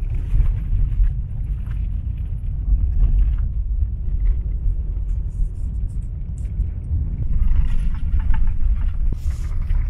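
Honda CR-V driving on a gravel road, heard from inside the cabin: a steady low rumble of tyres on gravel and engine.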